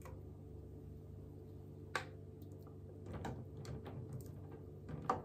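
Glass canning jars knocking against each other and a wire jar lifter as they are lowered into a pot of water: a single clink about two seconds in, a run of light knocks from about three to four seconds, and another clink near the end, over a steady low hum.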